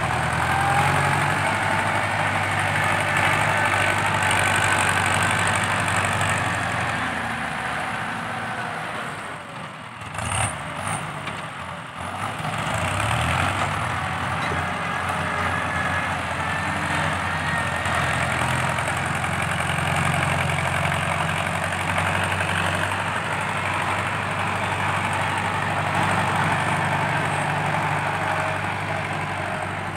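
Ford 6640 tractor's diesel engine working hard through a loud, fierce-sounding exhaust while pushing soil. It runs steadily, drops away for a few seconds near the middle, then comes back up to full level.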